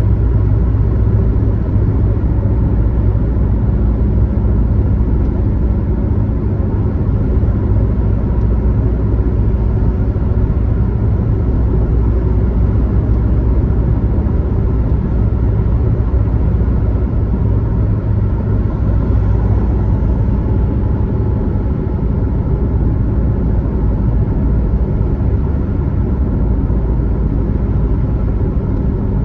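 Car driving at steady speed on a highway: a continuous low rumble of engine and tyre noise, even throughout.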